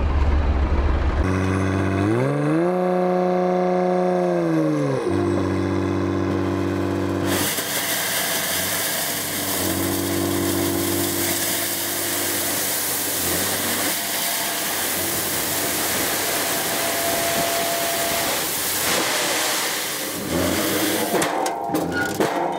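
Mercedes-Benz Actros 8x4 dump truck tipping a load of granite crushed stone: the diesel engine revs up about two seconds in to drive the hydraulic tipper and drops back a few seconds later. From about seven seconds in, the stone slides out of the raised body with a steady rushing noise.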